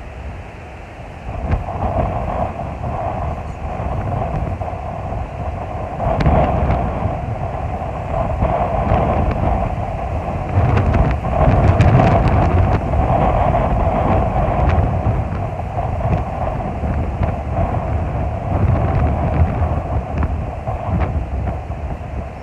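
Strong gusty wind buffeting the microphone, a loud, uneven rumble that swells in gusts, strongest about halfway through.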